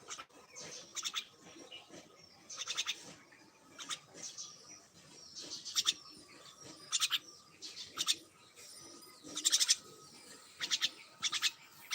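Birds chirping in short bursts of quick high notes, a burst about every second.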